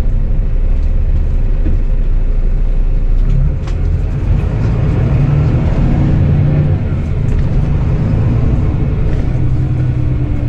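Interior sound of a Volvo B9R coach on the move: its diesel engine drones low under a steady road rumble. The engine note grows stronger about three seconds in and is loudest around the middle before easing back.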